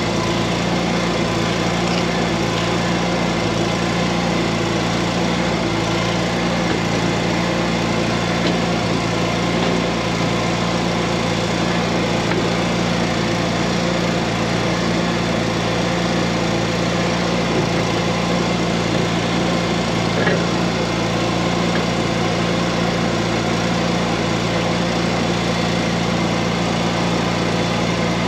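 An engine running steadily at a constant speed, with an even hiss over it that does not change.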